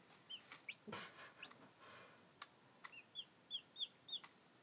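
Day-old Brahma chicks peeping: short, high cheeps, scattered at first, then a quick run of about five near the end. A few faint clicks and a brief rustle come in between.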